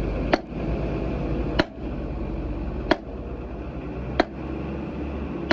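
Sledgehammer blows on a heavy truck leaf spring assembly, struck in a steady rhythm of about one blow every second and a quarter.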